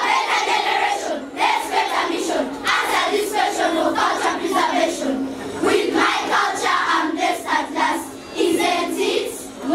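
A group of children's voices reciting a poem in chorus, in short chanted phrases with brief breaks between them.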